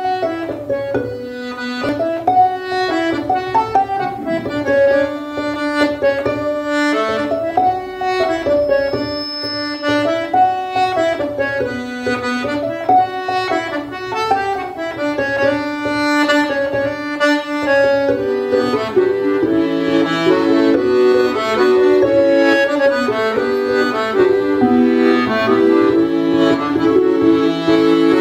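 Piano accordion playing a folk tune, with a fiddle plucked pizzicato alongside it. The accompaniment grows fuller about two-thirds of the way through.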